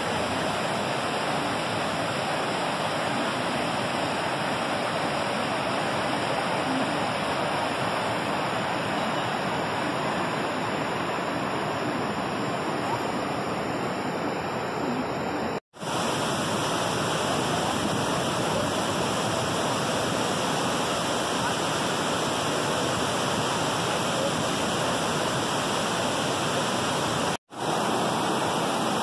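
River rapids and small waterfalls rushing, a steady, even noise of falling water. The sound drops out for a moment twice, about halfway through and near the end.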